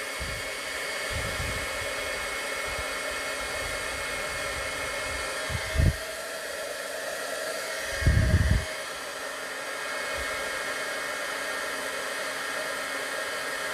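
Embossing heat gun blowing steadily with a high whine, heating gold embossing powder until it melts. Two low thumps come about six and eight seconds in, the second the louder.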